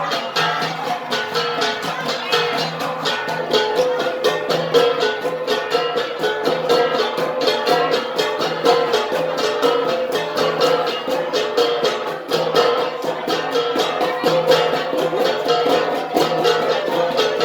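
An ensemble of gangsa, flat bronze gongs, struck in a fast, steady, interlocking beat, their ringing tones overlapping.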